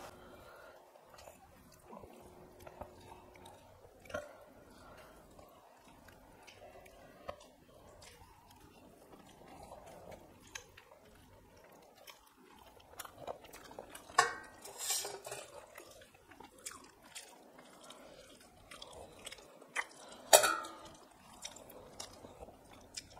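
Eating by hand from steel plates: chewing and mouth sounds, fingers working rice against the plates, and scattered small clicks, with two sharper, louder sounds in the second half.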